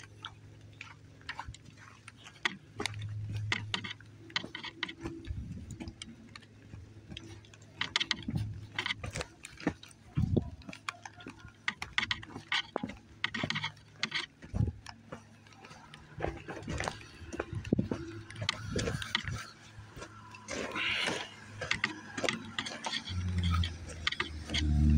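Footsteps and rustling while walking through brush, with irregular clicks and knocks at uneven intervals. A louder low rumble comes in near the end.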